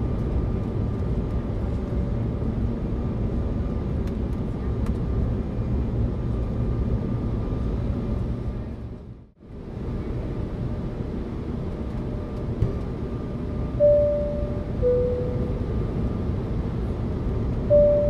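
Steady airliner cabin rumble, dipping out and back in about halfway through. About fourteen seconds in, the seat-belt sign chime sounds: a two-tone high-then-low ding-dong. A second high tone begins just before the end.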